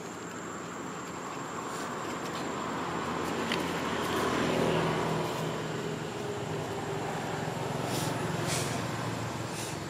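A motor vehicle's engine passing, its hum swelling to a peak about halfway through, easing, then rising briefly again before fading.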